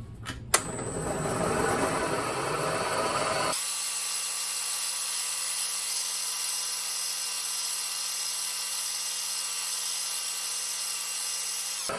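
Milling machine running as a twist drill bores a tang hole to full depth in a desert ironwood handle block, a steady machine drone with a few sharp clicks right at the start. About three and a half seconds in the sound abruptly thins to an even hum made of several steady tones.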